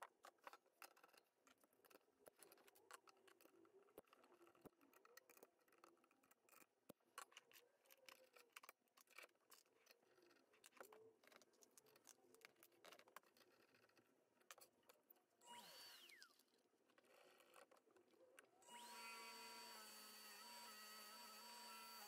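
Faint, scattered clicks and taps of hands handling a bowl blank, chuck and tailstock at a small wood lathe. Near the end a steady hum with a high whine starts.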